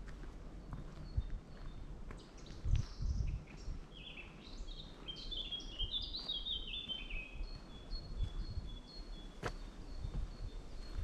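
Woodland songbird singing a quick run of notes that steps down in pitch, then another thin high note repeated, over soft footsteps on a forest path. A single sharp click comes near the end.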